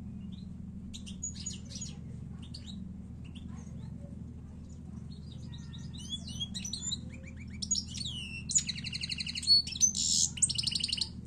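European goldfinch singing: scattered twittering notes at first, building into a fuller run of quick sliding notes about halfway through, then a loud, fast buzzy trill over the last few seconds.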